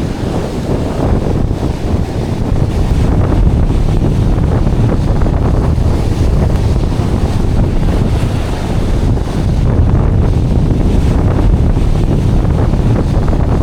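Strong wind blowing across the microphone, a loud, gusting rumble, with ocean surf washing in beneath it.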